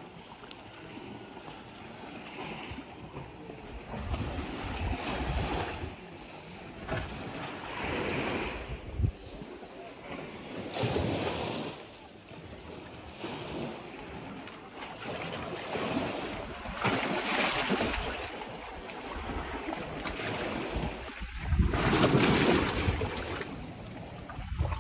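Small sea waves washing onto a sandy, rocky shore, surging and falling back every couple of seconds and loudest near the end, with wind buffeting the microphone.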